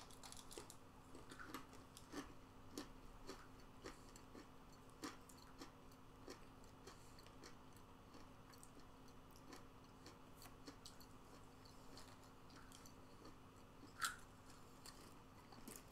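Faint crunching and chewing of a mouthful of spicy trail mix (peanuts, cashews, pretzels and cheddar crackers), scattered soft crunches over a low steady hum. One brief louder noise near the end.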